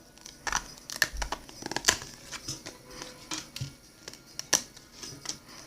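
Glossy trading cards being handled and flipped through one by one: irregular quick flicks, taps and rustles of card stock sliding against card stock.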